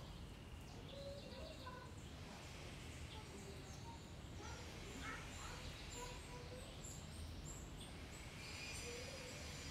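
Birds chirping and calling now and then over a steady low outdoor background noise, with a thinner high-pitched twittering near the end.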